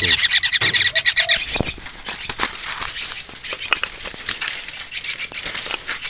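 A bird's rapid, high chattering call lasting about a second and a half, then scattered clicks and rustling of birds fluttering in the aviary.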